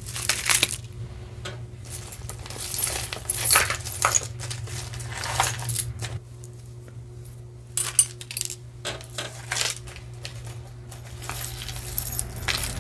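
Costume jewelry and glass beads clinking and rattling as they are handled and dropped into a box, in irregular bursts of small metallic and glassy clicks over a steady low hum.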